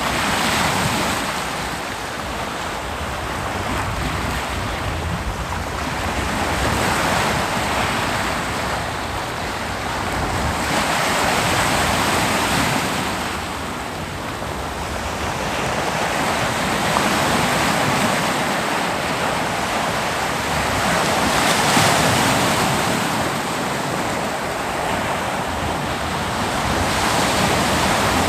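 Ocean surf breaking on a beach: a continuous wash of waves that swells and eases every few seconds as each wave breaks and runs out.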